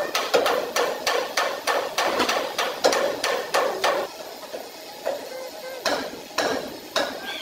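A hammer striking metal in quick repeated blows, about three or four a second. The blows die down for a couple of seconds past the middle, then start again near the end.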